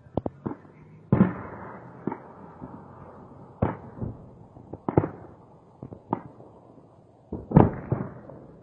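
Bombardment heard from a distance: a series of about eight sharp blasts at irregular intervals, each followed by a rolling echo. The loudest come about a second in and near the end.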